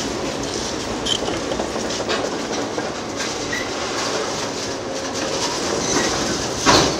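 Heavy demolition machinery at work, with continuous clattering and crunching of broken concrete and steel, and a louder crash near the end.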